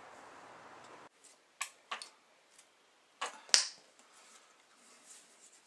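A few light clicks and taps of an object being handled in the hands, the loudest about three and a half seconds in, over faint room hiss.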